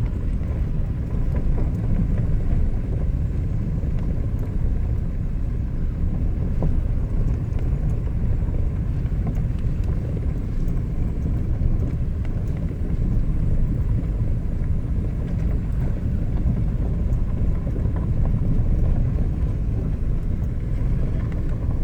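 Car moving slowly, a steady low road-and-engine rumble heard from inside the cabin.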